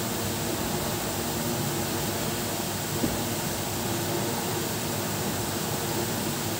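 Steady background hiss with a faint low hum, like a fan or air conditioner running. A single small click comes about three seconds in.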